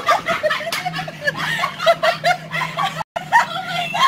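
A woman laughing and giggling in quick bursts while bouncing in an inflatable bounce house, over the steady low hum of the bounce house's blower. The sound cuts out briefly about three seconds in.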